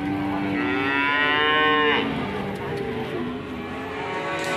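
Cattle mooing: one long, loud moo over the first two seconds, its pitch rising toward the end, followed by fainter moos from other cattle.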